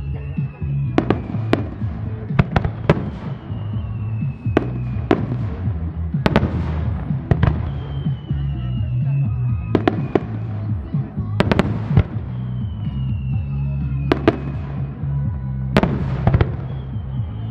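Starmine fireworks: a rapid-fire run of aerial shells going off in sharp bangs, one to several every couple of seconds, over music played through loudspeakers with a steady low bass line.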